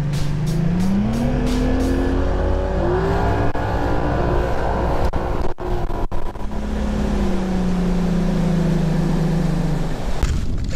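Bass boat's outboard motor accelerating, its pitch rising over the first two seconds or so, then running at speed with wind rushing over the microphone. In the second half the pitch settles a little lower as it eases off.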